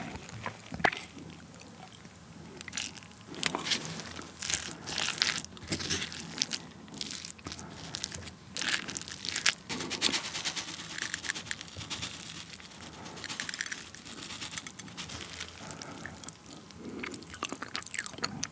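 Wooden spoon mixing and pressing steamed rice soaked in soy-sauce crab marinade on a plate, close to the microphone: an irregular string of short sticky clicks and scrapes of the spoon against rice and dish.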